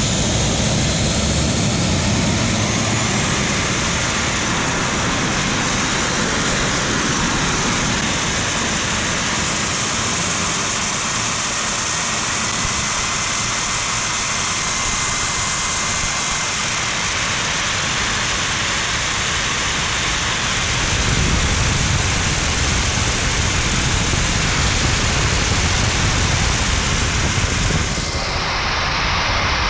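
Small model turbojet engine running steadily: a loud, even rushing roar with a high whine that climbs slowly in pitch, its exhaust blown through a homemade turboshaft scroll housing and bypass pipe. Near the end the highest hiss drops away and the sound eases slightly.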